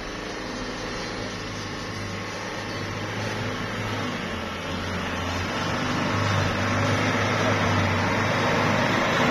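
Diesel engine of a Hino light truck running under light throttle as it crawls along a dirt road toward the listener, a steady hum that grows louder as it comes closer.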